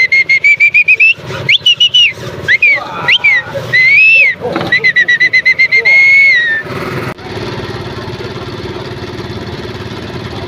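Loud, high whistling: a run of quick short chirps, then rising and falling swoops and a held warbling note, cutting off about seven seconds in. A steady low hum and street noise follow.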